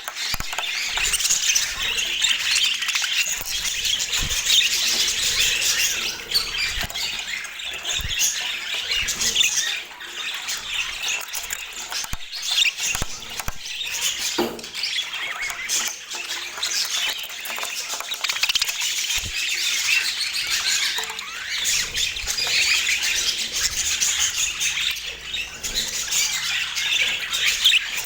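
Budgerigars chirping and chattering continuously, a dense stream of high, overlapping chirps.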